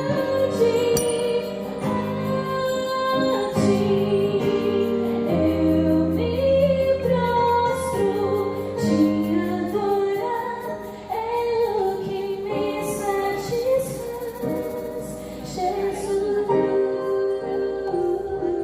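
Music: a sung melody with wavering pitch over sustained accompaniment and held bass notes.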